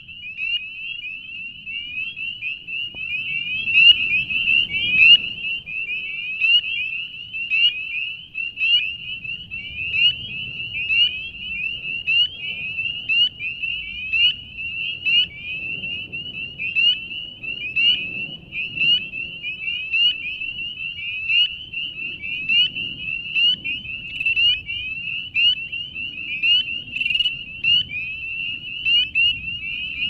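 A dense chorus of spring peepers: many short, rising peeps overlapping without a break.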